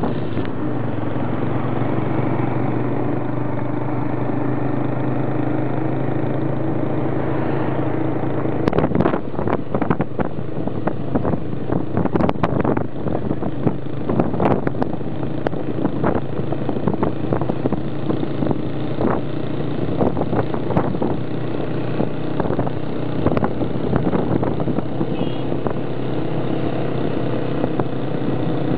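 Motorcycle engines running steadily as a group rides along, giving an even engine drone. From about a third of the way in, many short sharp cracks come over the drone, thinning out near the end.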